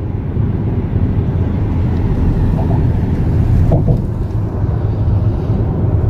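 Steady road noise inside a car's cabin at highway speed: a continuous low rumble of tyres and engine.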